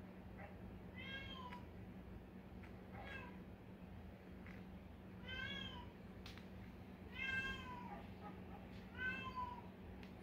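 A domestic cat meowing over and over, about six drawn-out meows a second or two apart, each falling in pitch at its end.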